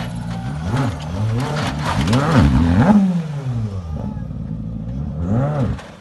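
Skoda Fabia R5 rally car's 1.6-litre turbocharged four-cylinder engine revving up and down through a hairpin, its pitch rising and falling again and again, with a few sharp cracks in the first second. The sound drops away sharply near the end.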